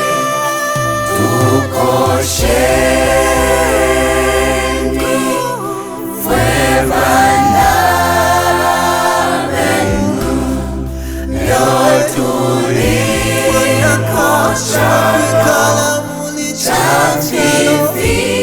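A choir singing a gospel song, several voices in harmony over a steady bass accompaniment.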